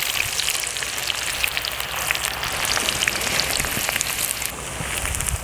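Sliced onions sizzling and crackling as they deep-fry in hot oil in a metal pan, a dense hiss full of tiny pops that thins slightly near the end.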